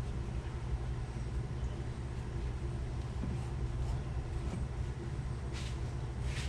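Steady low mechanical hum with a faint steady tone above it, and two light clicks near the end.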